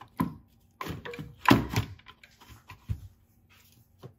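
Plastic coolant expansion tank being pushed and seated into its mounts by hand: a few separate knocks and clicks of plastic against plastic, the loudest about a second and a half in.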